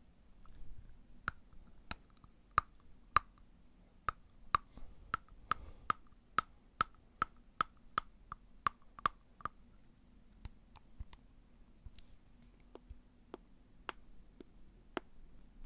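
Fingernails being bitten: a string of sharp clicks as the teeth snap on the nails, about two a second for several seconds, then sparser clicks in the second half.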